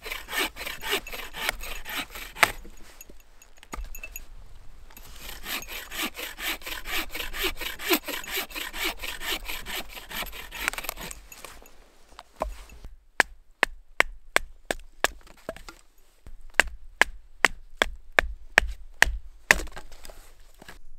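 A folding bow saw cutting firewood in quick, steady back-and-forth strokes, which stop about eleven seconds in. A run of sharp, separate knocks follows, about two a second, as the firewood is split into small pieces.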